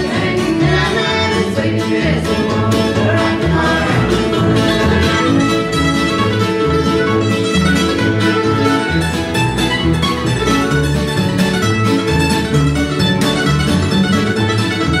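Old-time string band playing live: mandolin, fiddle, acoustic guitar and upright double bass, with the bass plucking a steady pulse. Voices sing in the first few seconds.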